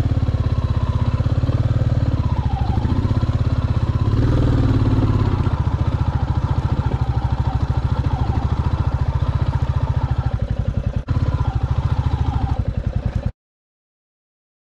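Royal Enfield Classic 350 Reborn's single-cylinder engine running as the bike is ridden along a rough dirt track, with a brief rise in pitch about four seconds in. The sound cuts off abruptly a little before the end.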